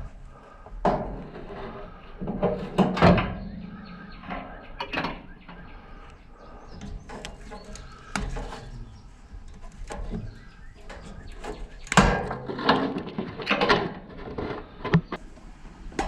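Irregular knocks and clatter of scrap being handled and taken apart by hand, with the sharpest strikes about 3 s and 12 s in.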